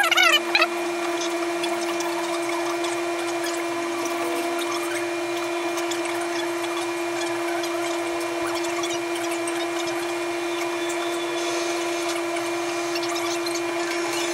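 A steady hum at one constant pitch runs throughout, under faint small ticks and rustles of thin wires being twisted together by hand. A short, loud warbling high tone comes right at the start.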